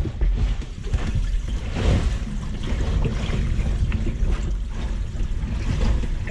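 Steady low rumble and wash of seawater inside a sailboat's bow compartment as the sea works against the hull and leaks in through a crack, with scattered light knocks.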